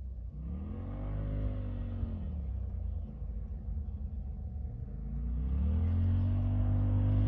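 Off-road vehicle engine revving up and easing back down, then climbing again near the end and holding at higher revs.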